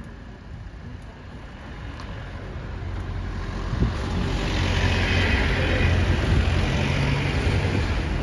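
A motor vehicle's engine hum and road noise growing louder over a few seconds and staying loud through the second half, as a vehicle comes close. There is a short knock about four seconds in.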